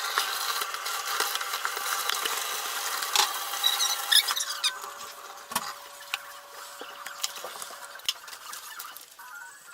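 Hand washing-up in a sink, sped up nearly six times: a rapid, high-pitched clatter of crockery and cutlery knocking together in the water. The clatter is busiest for the first five seconds, then thins to scattered clinks.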